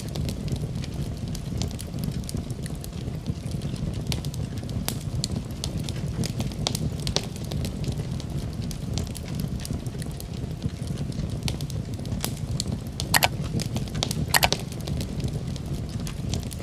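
Wood fire burning in a fireplace: a steady low rumble of flames with frequent sharp crackles, and a couple of louder pops near the end.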